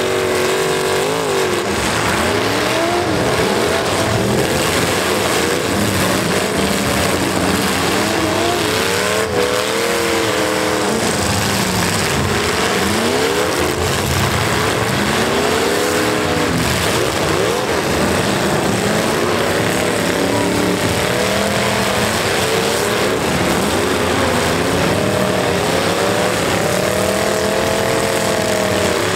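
Engines of several stock pickup trucks in a demolition derby revving up and down again and again, one after another, over a steady din of running engines.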